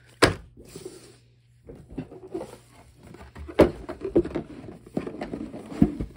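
Cardboard board game box being handled: the rulebook and cards dropped into it, the lid put on and the box set down. This gives several sharp knocks with rustling between them; the loudest knock comes a little past halfway.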